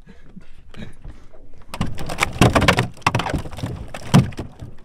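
A freshly shot bowfin thrashing as it is put into a bucket: a quick run of thumping and banging about two seconds in, further knocks, and one sharp loud knock near the end.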